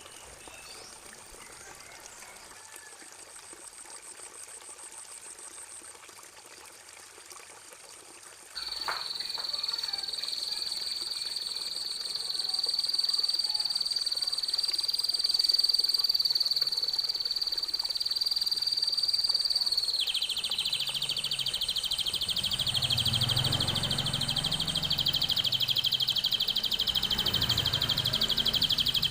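Recorded songbird song used as a masteran tutor track: faint chirps at first, then a loud, very rapid high trill that starts suddenly about a third of the way in and holds steady, dropping slightly in pitch past the middle.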